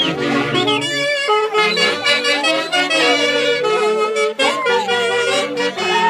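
Huaylas music from an orquesta típica, with saxophones and clarinets playing the melody over a steady lower accompaniment. The melody has several sliding, falling notes.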